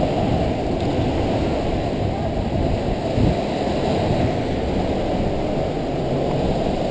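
Steady low rumble of wind buffeting a head-mounted GoPro's microphone, with a soft bump about three seconds in.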